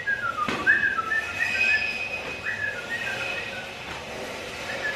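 A man whistling a tune in short notes with small slides up and down.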